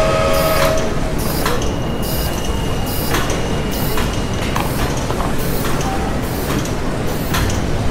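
Factory machinery ambience: a steady low rumble with a regular clattering, hissing beat, about three strokes every two seconds, and a brief pitched tone right at the start.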